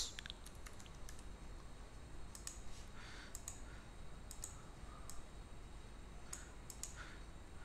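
Faint, scattered computer keyboard and mouse clicks, a few spaced over several seconds.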